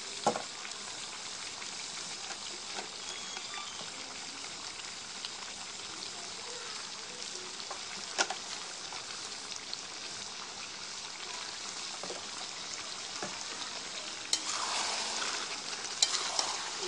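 Mutton and potato pieces sizzling steadily in oil in a metal kadai. The ladle clinks against the pan a few times as the curry is stirred, and the stirring grows busier and louder near the end.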